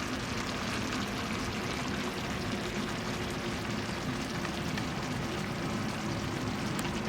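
Beef and broccoli stir fry sizzling steadily in the pan, its sauce cooking down and thickening.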